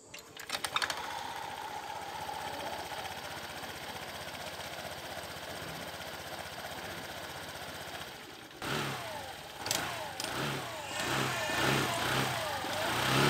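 Honda Lead 125 scooter's single-cylinder engine started with the CVT cover off and idling steadily, the drive belt and clutch spinning in the open. From about eight and a half seconds in, it is revved up and down over and over as the freshly serviced clutch is tested.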